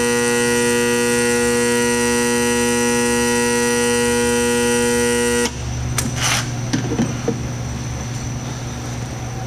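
Electric bearing heater buzzing steadily with a mains hum while it heats a bearing, then switching off abruptly about five and a half seconds in. A few short metallic clinks and knocks follow as parts are handled.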